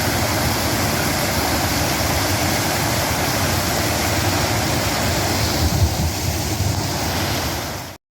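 Steady rushing noise, even across the range with a flickering low rumble, cut off abruptly near the end.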